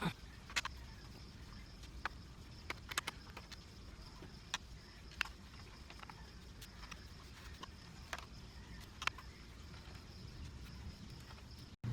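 Small laptop parts being handled by hand: scattered sharp clicks and taps, eight or so at irregular intervals, over a low steady hum.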